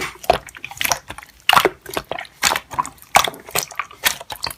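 Slime being squeezed and pressed by hand, giving an irregular string of wet clicks and squishy pops.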